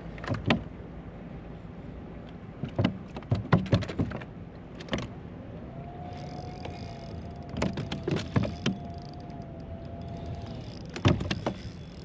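Scattered knocks and clatter of fish and gear being handled in a plastic fishing kayak. A steady, even-pitched whine comes in about halfway through and lasts roughly five seconds.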